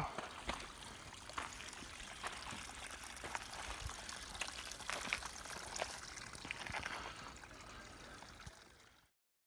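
Footsteps crunching on a rocky gravel trail at a walking pace, about one step a second, over a steady rushing hiss; the sound fades out near the end.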